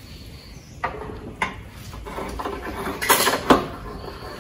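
Small clamp-on bench vise being clamped to a workbench edge: a few sharp metal clinks and knocks as the clamp screw's sliding T-handle is turned, loudest about three seconds in.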